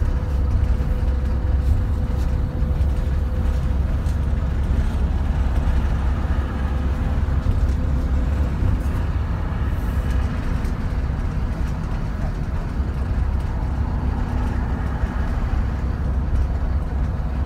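Steady low rumble of a large road vehicle driving along a highway: engine and tyre noise from the vehicle being ridden in.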